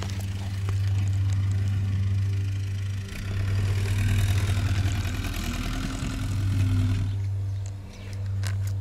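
An engine running steadily, its low hum swelling and easing slightly in pitch and level.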